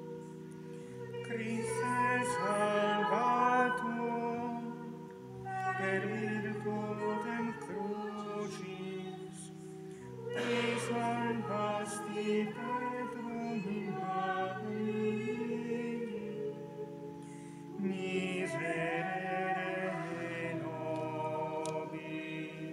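Voices singing a liturgical chant in several phrases over sustained organ chords.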